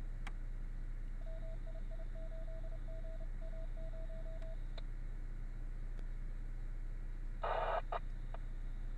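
A run of short electronic beeps on one steady pitch, about ten of them in three seconds, over a steady low hum; near the end, a brief loud rush of noise and a click.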